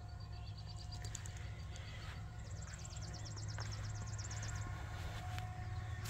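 A songbird singing in the background: a thin, high, repeated note, then a rapid high trill of about ten notes a second lasting about two seconds. A steady low hum sits underneath throughout.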